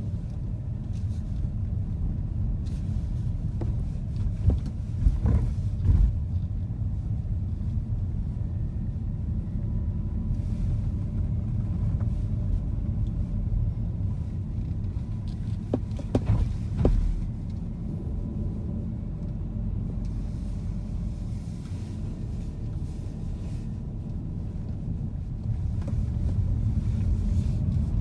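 Car cabin noise while driving: a steady low rumble of engine and road heard from inside the car. A few short knocks come through about five seconds in and again about sixteen seconds in.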